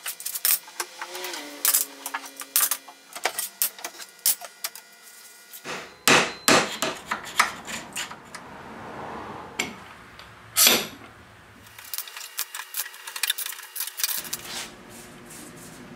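Irregular clicks, taps and knocks of metal against wood: steel pipe clamps and small hand tools being handled on a wooden desk. About a second in there is a brief falling squeak.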